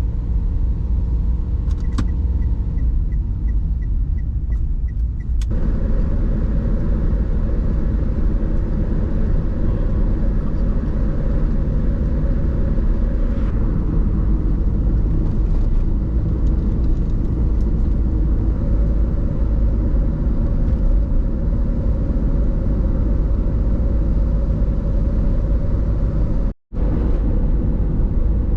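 Small car driving, with a steady low road and engine rumble that grows fuller about five seconds in and cuts out briefly near the end.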